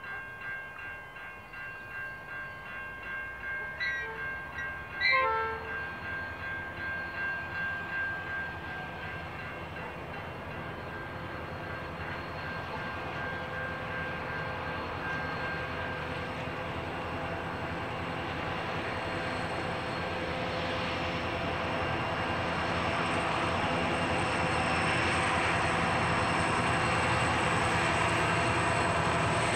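Approaching diesel freight locomotives, Pacific National 81 class 8163 leading X48 and 8160 on a loaded grain train, their engine and wheel rumble growing steadily louder through the second half. In the first several seconds a ringing pulses about twice a second, with a short loud call about five seconds in.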